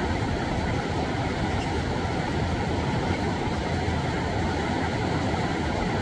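Mountain stream cascading down a rocky channel between boulders: a steady, powerful rush of water, deepest in the low range.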